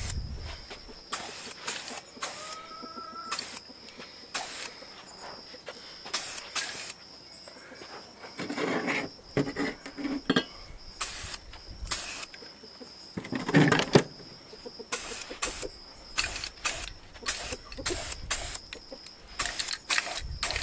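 Aerosol spray paint can hissing in a series of short bursts as steel brackets are sprayed.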